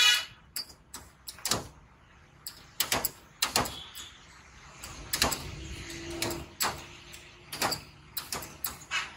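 Irregular knocks and clacks of raw peeled potatoes being handled and a hand-lever french fry cutter being worked, with the loudest knock right at the start.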